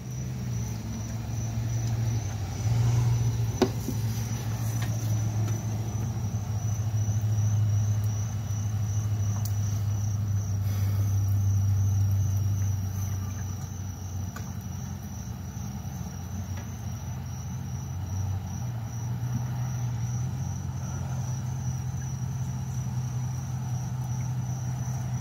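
Engines of a parked ambulance and fire truck idling with a steady low rumble. Crickets chirp in a high, rapid, even pulse over it.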